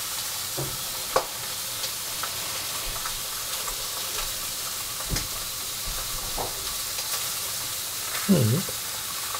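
A metal spoon scooping cooked rice on a plate, with a few light clicks of the spoon against the plate, over a steady hiss. A brief voice sound comes near the end.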